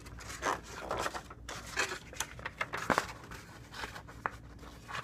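Paper and cardboard rustling as a model-kit instruction booklet and its cardboard box are handled and turned over, with a few sharp taps.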